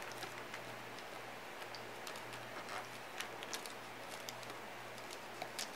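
Faint, scattered small ticks and clicks of fingertips pressing twine into a soft encaustic wax surface, over a low steady hum.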